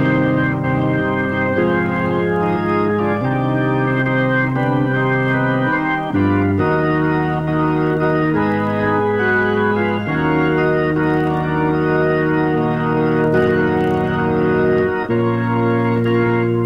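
Organ music playing slow, sustained chords that shift every second or two.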